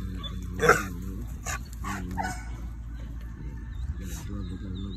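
Pit bull-type dog whining and yipping in short, wavering cries, with a few sharp noisy bursts, the loudest about two-thirds of a second in.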